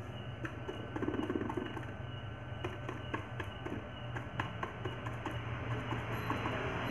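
Paintbrush stippling texture paint onto a plywood speaker box: a run of light, irregular taps, several a second, over a steady low hum.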